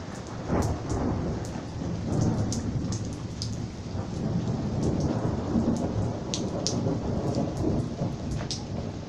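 Thunderstorm: rain falling with a long rolling rumble of thunder that swells through the middle, and scattered sharp ticks of drops striking a surface.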